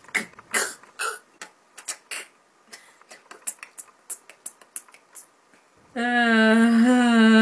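A woman giggling in short, breathy bursts. About six seconds in, a loud, steady vocal note is held for a couple of seconds.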